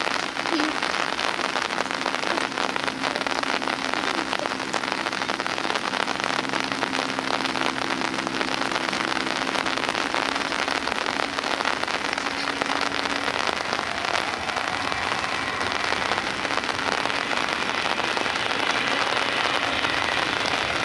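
Heavy rain pouring down steadily in a dense hiss. A faint low hum under it stops about two-thirds of the way through, and a higher whine grows near the end.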